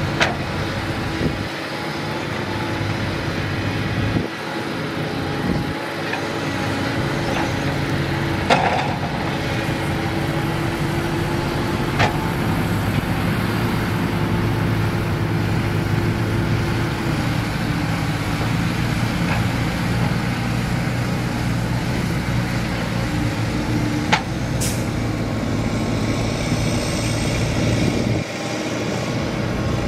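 Heavy diesel dump truck engines running steadily, with a few sharp knocks.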